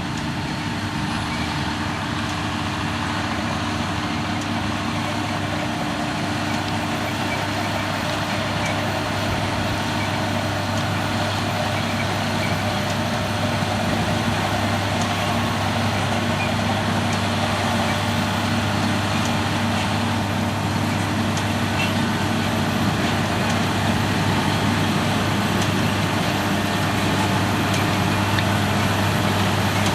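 Diesel engines of potato harvesting machinery running with a steady drone, growing slowly louder.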